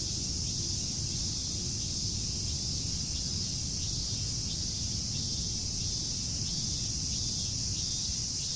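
A chorus of cicadas shrilling steadily in a continuous high-pitched drone, over a low steady background rumble.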